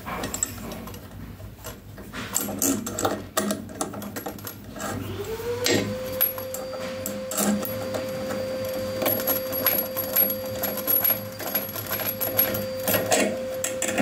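Metal clicks and taps of a wrench working the faucet's mounting nut under a washbasin as it is tightened. About five seconds in, a steady hum starts, rises in pitch and then holds.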